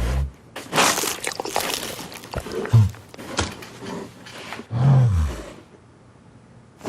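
Low growls, as of a bear, right at the start and again about five seconds in, with bursts of rustling noise in between.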